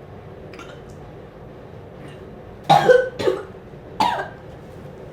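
A child coughing hard in a few sharp bursts while forcing down a plate of biryani in an eating race, with food said to be stuck in the chest.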